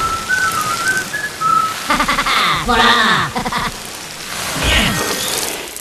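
Cartoon sound-effects track: a whistled run of short stepped notes, then several sounds sliding down in pitch, over a steady rain-like hiss.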